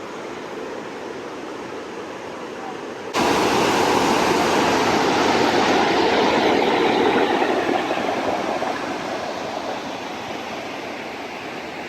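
Waterfall and rushing river water, a steady rush of noise. It jumps much louder about three seconds in and then fades off gradually over the last few seconds.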